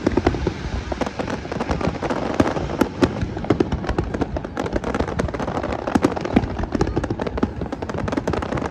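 Fireworks display going off in a rapid, continuous barrage of many bangs and crackles a second.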